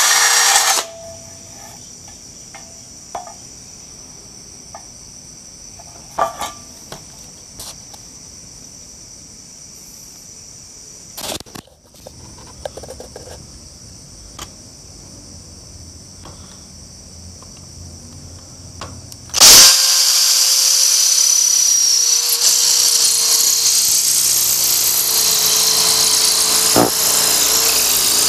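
Cordless drill, powered by a homemade 24-volt battery pack, runs briefly and stops. A long lull follows with insects chirping steadily and a few handling clicks. About two-thirds of the way in it starts drilling into a masonry wall and runs on steadily, its motor pitch drifting slowly down.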